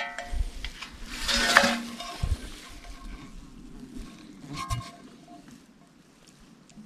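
Old thin aluminum pans clinking together as they are handled, each knock ringing briefly: one at the start and another about four and a half seconds in, with a rustling scrape about a second and a half in.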